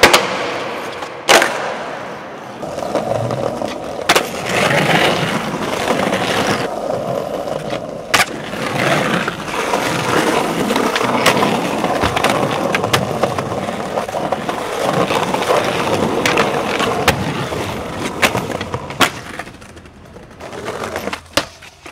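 Skateboard wheels rolling on concrete and paving, broken by about ten sharp clacks of the board popping and landing.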